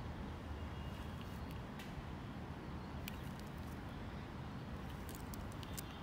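Steady low outdoor background rumble, with a few faint sharp clicks scattered through it, a small cluster near the end.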